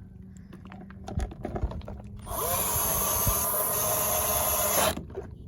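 Handling clicks, then a cordless power drill/driver running on a screw in the generator housing for about two and a half seconds. The motor spins up at the start and stops abruptly.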